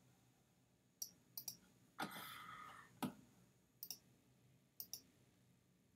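Faint computer mouse clicks, several in quick pairs as double-clicks. About two seconds in, one click is followed by a brief ringing tone that fades away.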